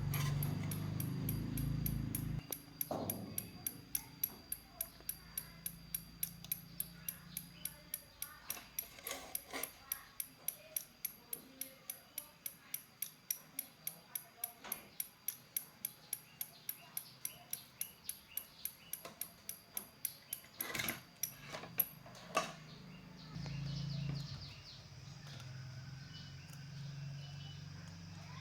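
Regular ticking, about two and a half ticks a second, over a faint steady high whine. It stops after a couple of louder knocks near the end, and a low hum comes back.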